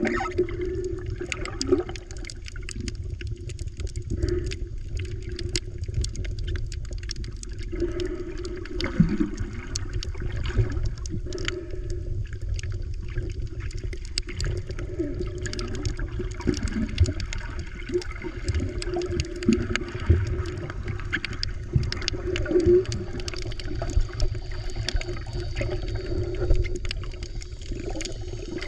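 Underwater sound picked up through an action camera's waterproof housing while snorkelling: a muffled, steady low rumble of moving water with many scattered small clicks and crackles.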